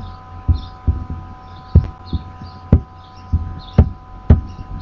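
Computer mouse clicks, heard as irregular dull thumps with sharp clicks on top, about seven in under five seconds, over a steady electrical hum with faint steady tones.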